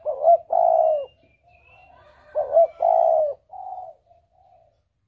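A dove cooing: two phrases, each a short note followed by a longer rolling coo, then a few softer, shorter coos. Faint high chirps of a small bird come in between.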